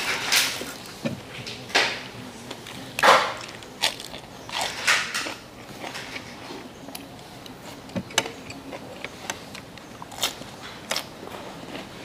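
Eating and food-handling sounds: a thin plastic bag rustles in several short bursts during the first few seconds as sticky rice is taken from it, then there are scattered soft clicks of chewing and lettuce leaves being folded.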